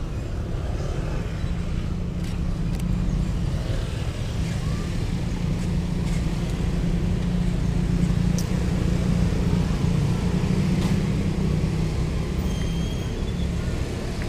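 Street traffic: motorcycle and car engines running and passing in a steady low rumble, with a few sharp clicks along the way.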